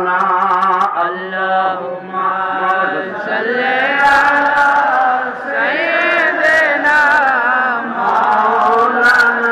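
A man's voice chanting a verse in a slow, wavering melody through a microphone and loudspeakers, with long held notes that slide up and down in pitch.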